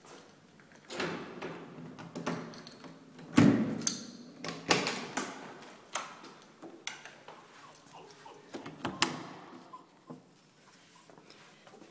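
Wooden door being opened: a string of clicks, knocks and rattles from the latch and handle, the loudest about three and a half seconds in.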